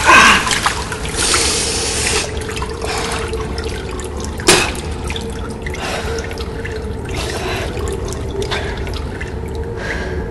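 Water dripping in a tunnel, with irregular small drips and splashes over a steady hum. A brief loud sound comes at the very start, and one sharper drip about four and a half seconds in.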